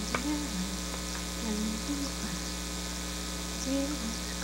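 Steady electrical mains hum, with a few soft, short voice sounds gliding up and down and a single click just after the start.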